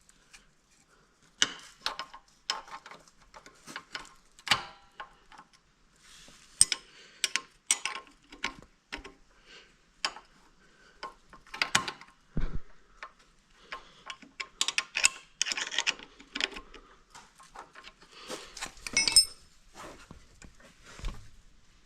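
Irregular metallic clicks and taps of hand tools: an adjustable wrench being fitted to and worked on a small bolt.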